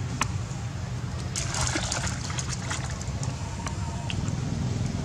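Shallow muddy puddle water splashing and sloshing as young macaques wade and paw through it, with a cluster of small splashes about one and a half to two and a half seconds in. A steady low rumble runs underneath.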